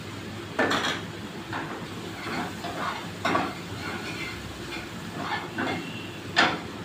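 Metal ladle clanking and scraping against a frying pan while chopped chicken is stirred in it, with sharp knocks roughly once a second, over a steady low hum.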